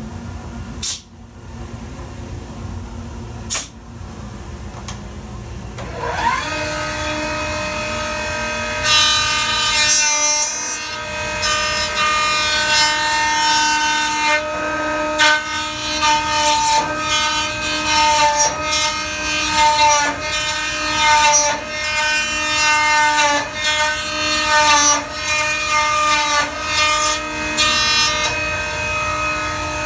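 Dovetailing machine cutting dovetails in a board end. Two sharp clacks come first, then the cutter motor spins up to a steady high whine about six seconds in. From about nine seconds the cutter rasps through the wood in repeated passes, and the motor winds down at the very end.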